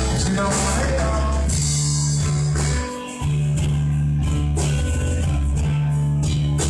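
Blues band playing a slow blues with no singing, guitar over sustained bass notes, with a short stop about three seconds in before the band comes back in.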